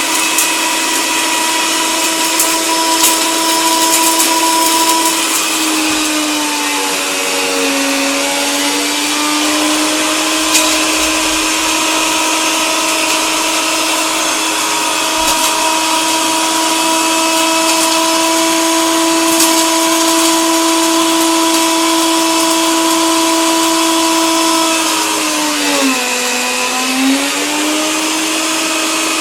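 Coffee grinder running steadily: a motor hum over a gritty grinding hiss with scattered clicks. Twice the hum's pitch sags and then comes back up, about a quarter of the way in and again near the end.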